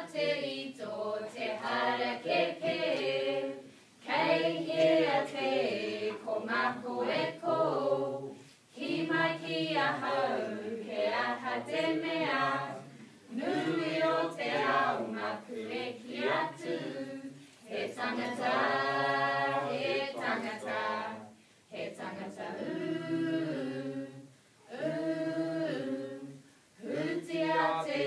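A small group singing together unaccompanied, in sung phrases a few seconds long broken by short pauses for breath.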